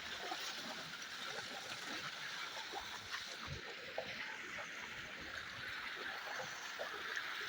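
Water running and splashing steadily, with scattered small knocks.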